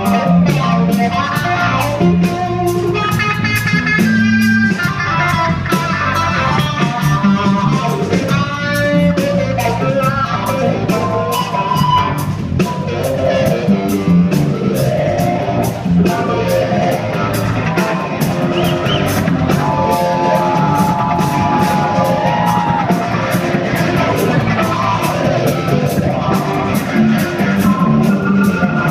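Live rock band playing, an electric guitar to the fore over drums and bass with a steady cymbal beat; the guitar holds one long note about two-thirds of the way through and bends it at the end.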